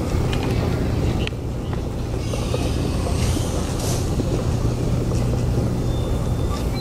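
Shopping cart wheels rolling over a hard, polished store floor, giving a steady low rumble with a few faint clicks.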